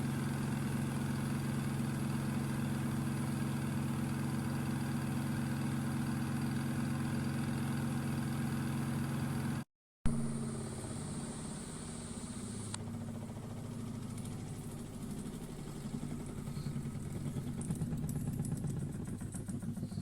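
Small electric washing machine motor running at a steady speed with a constant hum. After a sudden cut, a rougher, uneven fluttering machine sound swells and then starts to fade near the end.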